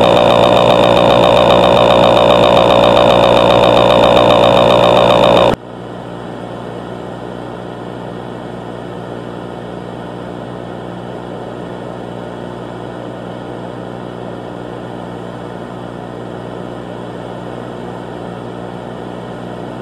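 A loud, steady buzzing drone with many overtones that cuts off abruptly about five and a half seconds in, giving way to a quieter, steady low hum.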